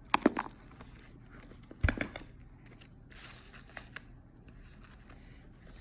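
A leather handbag being handled and turned over: faint rustling with a few sharp clicks just after the start and a louder knock near two seconds in.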